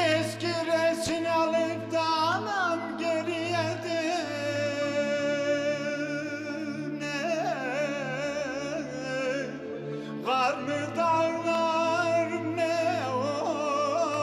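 A man singing a Turkish folk song (türkü) in long held notes, ornamented with quick wavering turns, with new phrases starting about seven and ten seconds in. A bowed string instrument accompanies him with steady sustained notes.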